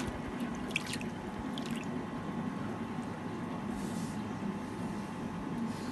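Small splashes and drips of water as hands handle a small fish held in shallow water, a few light splashes in the first two seconds, over a steady low hum.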